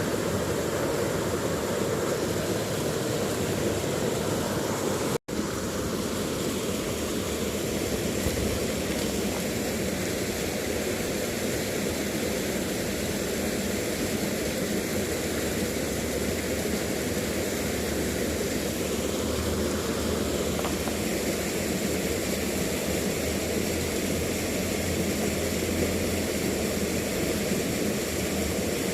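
Steady rush of flowing stream water over rocks, cutting out for an instant about five seconds in.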